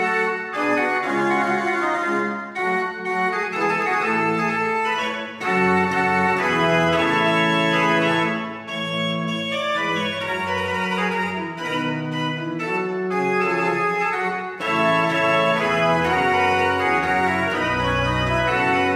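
Pipe organ playing, several voices moving at once in sustained notes with brief breaks between phrases; low pedal notes come in near the end.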